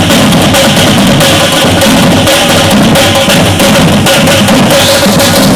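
Batucada drum ensemble playing a fast, dense samba rhythm, with bass drums and snare-type drums struck together loudly.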